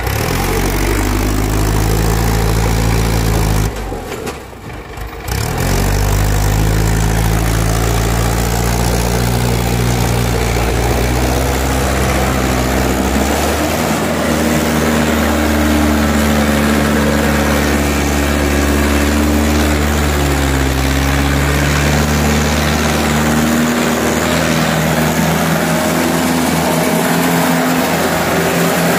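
Mahindra Arjun 605 tractor's diesel engine running hard, pulling two heavily loaded sugarcane trolleys; its pitch shifts up and down now and then, and it dips briefly about four seconds in.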